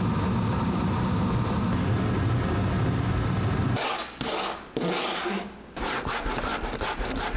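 A wire brush scrubbing a boot sole by hand in quick back-and-forth strokes, about four a second, roughing the surface for glue. For the first four seconds a steady low droning noise is heard instead.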